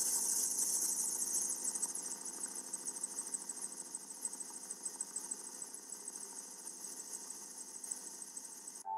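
Helicopter turbine and rotor noise as heard from aboard: a steady high hiss with rapid pulsing over several steady tones. It cuts off abruptly just before the end.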